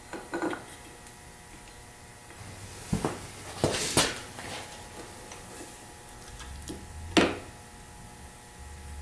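Metal engine parts and tools clinking and clanking in a few separate sharp knocks, loudest about four seconds in and again about seven seconds in, as the clutch-side parts of a two-stroke dirt bike engine are taken off.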